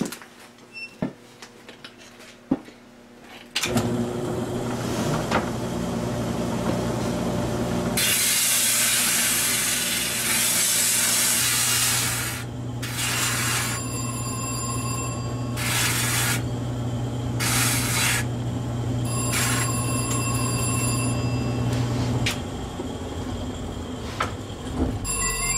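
A bench drum sanding machine's motor starts a few seconds in and runs with a steady hum; from about 8 to 12 seconds a loud rasping as the bark is sanded off a long wooden stick held against the drum. After that come several short, high ringing squeals, and the motor hum stops a few seconds before the end.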